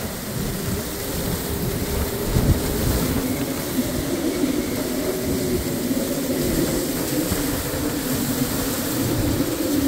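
Hurricane wind and heavy rain, a loud steady rush with a low rumble that swells and eases in gusts, and one louder thump about two and a half seconds in.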